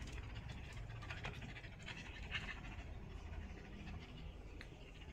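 Dog panting during rough play-fighting with a baby monkey, over a low steady rumble.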